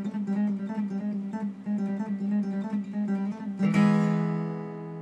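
Acoustic guitar music: a quick, repeating picked figure, ending about four seconds in on a strummed chord that rings and slowly fades.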